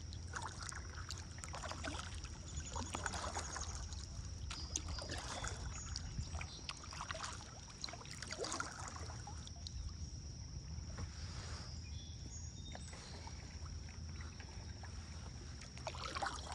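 Kayak paddle strokes: the blades dip and splash in the river water every second or two, with a low steady rumble underneath.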